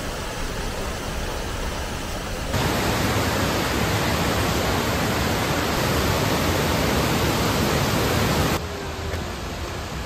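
Waterfall: a steady rush of falling water, louder from about two and a half seconds in until shortly before the end.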